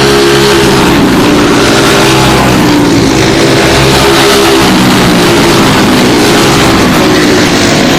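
A pack of four-stroke racing go-karts with Briggs & Stratton Animal engines running loudly at speed, several engine notes overlapping, their pitch shifting a little past halfway.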